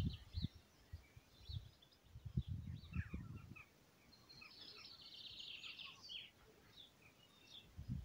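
Small songbirds chirping, with a quick, busy run of song in the middle. A few faint low rumbles come in the first half.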